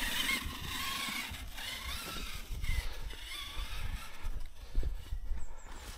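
Losi LMT Grave Digger RC monster truck's electric brushless drivetrain whining as it is driven, the high pitch rising and falling with the throttle and fading in the second half.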